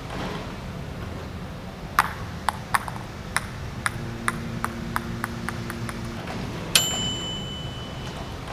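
A small hard object dropped onto a sheet of sidewall plastic, bouncing with a run of sharp clicks that come closer and closer together. Later there is one sharp ping that rings on for about a second. This is a bounce test comparing how traditional ABS sidewall plastic and urethane slime wall plastic take an impact.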